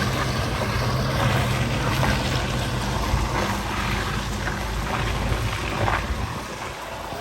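Car engine running as it drives through a flooded ford, with water splashing and rushing. Both ease off about six seconds in.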